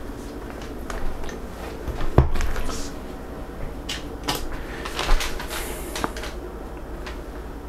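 Clunks and clicks of a KitchenAid Classic Plus stand mixer's tilt-head being lowered onto the bowl and locked in place, with the sharpest knock about two seconds in and a few lighter clicks after it.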